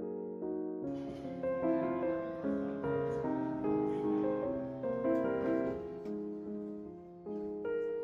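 Background piano music playing a gentle melody of held notes. About a second in, a faint hiss of background noise comes in beneath it.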